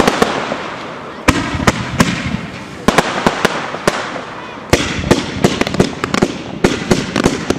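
Aerial fireworks display: shells bursting with sharp bangs every second or two, each dying away in a rumbling echo. In the second half comes a rapid run of many bangs.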